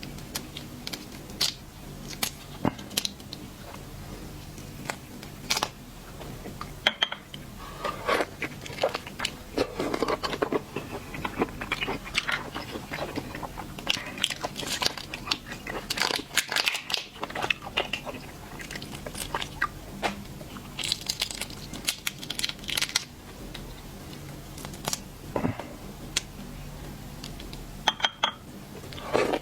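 Close-miked eating of shellfish: irregular cracking and tearing of shells, crunching, biting and chewing, with denser bursts of crackling partway through.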